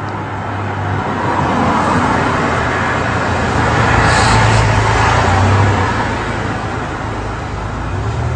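A road vehicle passing by: its noise swells over the first few seconds, peaks around the middle and fades again, over a steady low hum.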